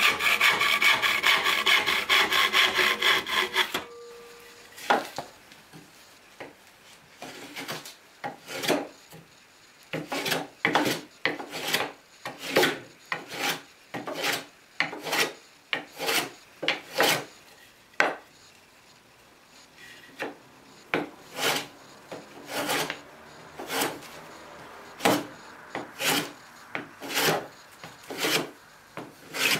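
A hand saw cutting through a pine board in quick, continuous strokes for about four seconds. It stops abruptly and gives way to a hand plane taking shavings off a thin pine board, one short stroke at a time at about two a second, with a brief pause about two-thirds through.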